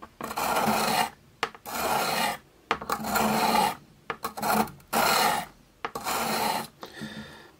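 Steel blade of bonsai scissors drawn under pressure across an oiled sharpening stone: about six scraping strokes, roughly one a second, honing the bevelled cutting edge.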